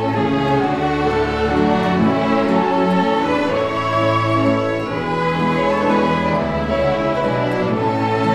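Church orchestra of violins, cellos and double bass playing a hymn tune in long, held bowed notes.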